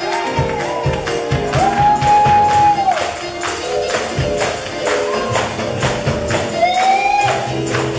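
Up-tempo gospel praise music: a tambourine and hand claps on the beat over sustained keyboard chords, with long held high notes about two seconds in and again near the end.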